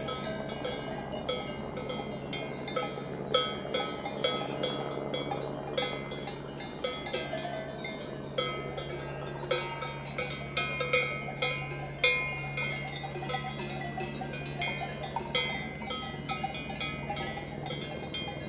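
Bells on grazing livestock clanking irregularly, many overlapping strikes that ring briefly, over a steady low hum.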